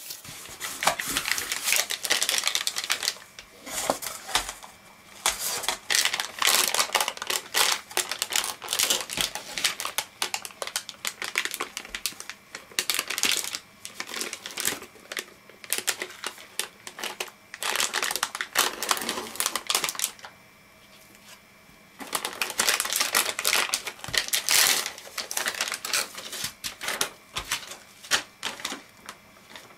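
Crinkling and crackling of a metallised anti-static bag as a hard drive is handled in it and pulled out, in dense runs of sharp crackles with a short pause about two-thirds of the way through.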